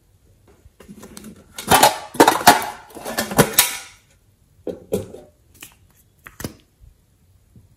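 Hard plastic clicking and clattering as lipstick and lip gloss tubes are handled and a cap is pulled off: a dense run of clatter about two seconds in, then a few separate clicks.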